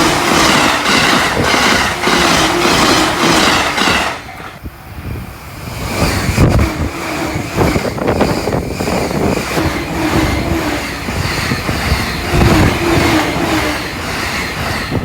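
An electric train passing at high speed, over 120 km/h, its wheels clattering over rail joints in a rapid, even rhythm; the sound cuts off abruptly about four seconds in, and another train then rushes past with heavy low thumps as its bogies go by.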